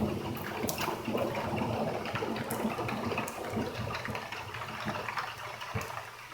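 Heavy rain pouring and splashing during a cloudburst, a steady hiss with scattered sharp drips and patters, easing slightly near the end.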